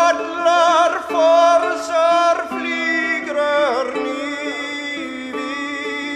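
Nordic folk music: a male voice sings long, wavering held notes over a plucked string instrument. The voice drops away about four seconds in, leaving the strings ringing steadily.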